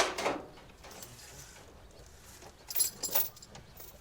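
Steel tie-down chains clinking against metal as they are handled, in a couple of short bursts about three seconds in.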